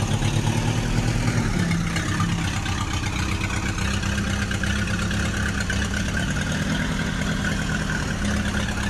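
Tractor engine idling steadily, most likely a sound effect laid over a toy tractor; its pitch dips briefly about one and a half seconds in.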